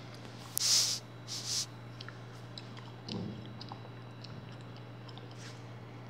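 Handling noise from a hand moving a phone and its braided charging cable on a tabletop: two short scraping rustles, then a soft knock about three seconds in and a few faint ticks, over a steady low hum.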